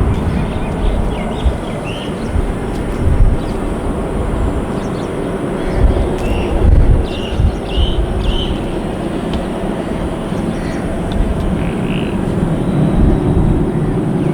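Airbus A320 jet engine noise, a steady rushing sound, with gusts of wind buffeting the microphone and short bird chirps over it.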